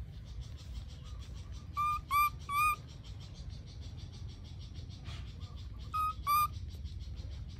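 Baby macaque giving short, clear, whistle-like coo calls: three in quick succession about two seconds in, then two more about six seconds in. A fast, steady high-pitched pulsing runs behind them.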